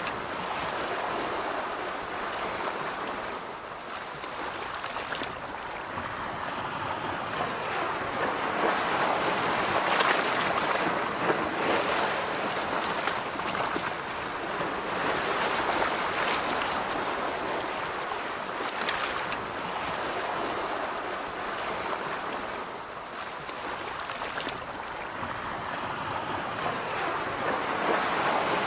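Surf washing onto a beach, a steady rush of waves that swells and eases every several seconds.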